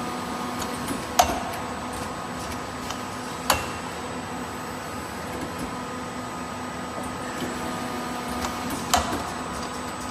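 Four-pillar press machine on a production line running with a steady mechanical hum, broken by three sharp metallic clacks at uneven intervals, the first the loudest.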